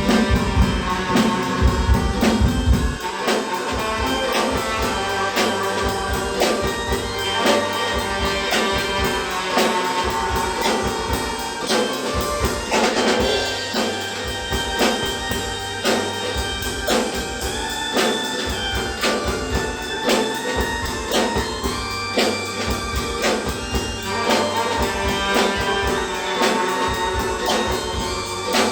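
Tenor saxophone playing an improvised melody over a live drum kit beat with steady, regular strikes. The deep bass drops away about three seconds in.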